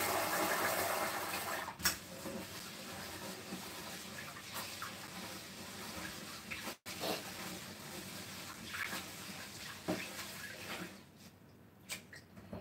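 Kitchen tap running into the sink, with a few knocks of dishes; the water shuts off about eleven seconds in.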